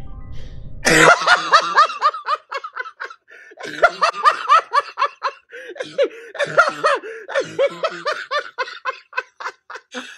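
A person laughing hard in rapid, high-pitched bursts of several a second, breaking off briefly about three seconds in before carrying on.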